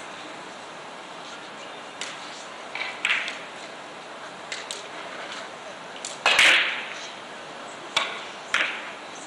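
Carom billiard balls clicking: about six sharp knocks, several with a short ringing after them, the loudest about six seconds in.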